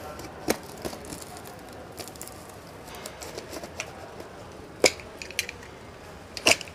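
Box cutter blade slitting plastic packing tape along the seam of a cardboard carton: scattered short scratchy clicks and crackles of tape and cardboard, the sharpest snap about five seconds in.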